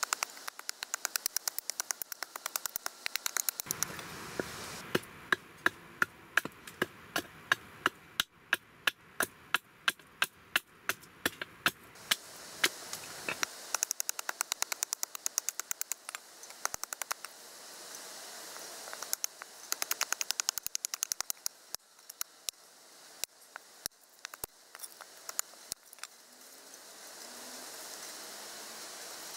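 A nata (Japanese hatchet) chopping down a wooden stick held upright on a chopping block, roughing out a spoon blank: sharp wooden chops, several a second, in runs with short pauses.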